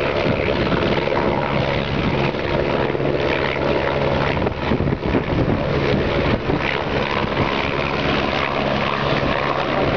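Army helicopter's rotor and turbine engine running loud and steady close by, a continuous beating drone with a low hum and a broad wash of rotor noise.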